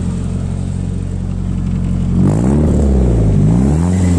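Nissan SR20DET turbocharged four-cylinder in a BMW E30 idling steadily, then revved up and let fall back about three times from a little over two seconds in.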